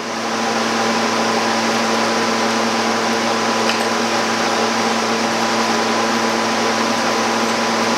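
Chiller running: a steady mechanical hum with several constant tones over an even hiss, unchanging throughout.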